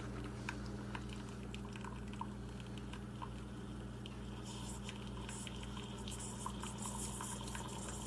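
Home espresso machine brewing a shot: a steady pump hum, with espresso trickling into the cup in small drips.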